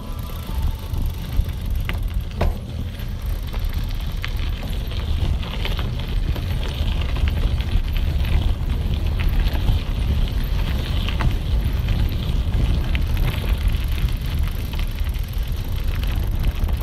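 Bicycle riding over a gravel and dirt road: a steady low rumble of the tyres on the rough surface, with scattered clicks and rattles, the sharpest two about two seconds in.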